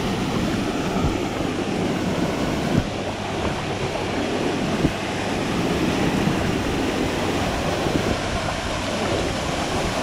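A small waterfall pouring into a rock pool close by, a steady rushing of water, with two brief sharp knocks about three and five seconds in.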